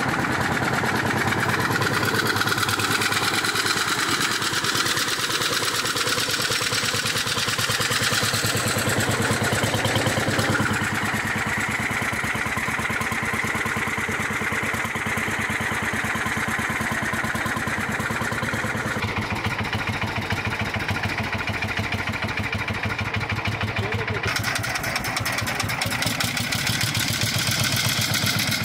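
Single-cylinder two-stroke hot-bulb engine of an Ursus C-45 tractor idling with a steady, even beat.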